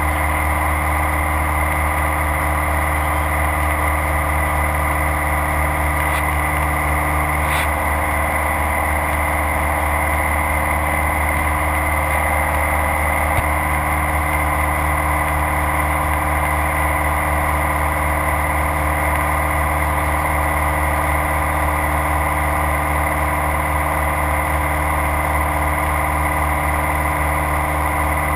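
Light aircraft's piston engine and propeller running steadily at constant power, heard inside the cockpit in flight, with a brief click about seven seconds in.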